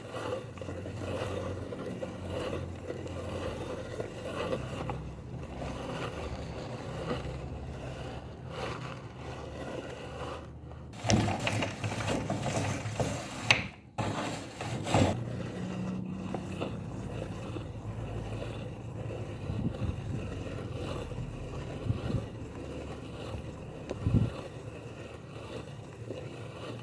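Meat grinder running steadily and grinding Oreo cookies, with irregular crunching and scraping over a mechanical drone. It grows louder and denser about 11 to 15 seconds in, with a few sharp knocks later.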